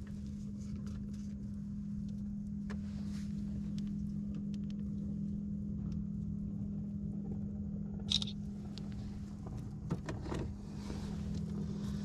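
Wind rumbling on the microphone over a steady low hum, with scattered light knocks and clicks as a small snook is handled and laid on a measuring ruler on a boat deck; one sharper click or slap about eight seconds in.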